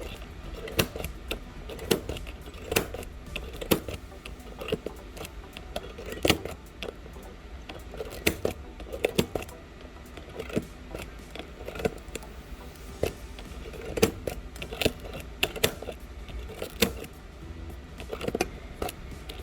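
Cracked iPhone 11 back glass being broken up with a hand tool: irregular sharp clicks and crackles of glass, with a few louder cracks scattered through.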